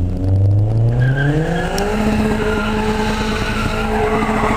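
Honda S2000's four-cylinder engine, breathing through an HKS exhaust and test pipe, revs up over about two seconds and is then held high and steady. Tyres squeal as the car spins a donut.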